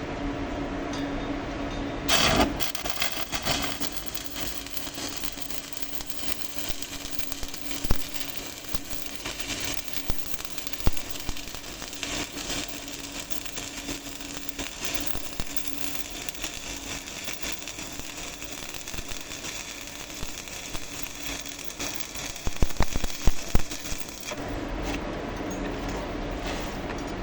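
Stick-welding arc crackling and sizzling steadily as rebar is welded to a steel plate, with occasional sharp pops. It starts suddenly about two seconds in and stops about three seconds before the end, leaving a steady hum.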